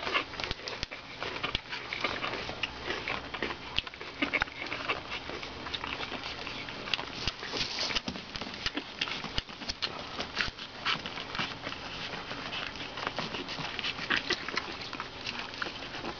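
Litter of two-week-old Boston Terrier puppies moving about on their bedding: a dense, irregular patter of small scratching and rustling noises.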